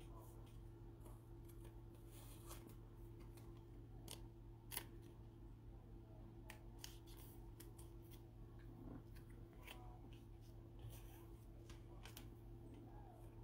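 Faint, scattered clicks and crinkles of a clear plastic team bag and trading cards being handled with nitrile-gloved hands, the loudest click about five seconds in.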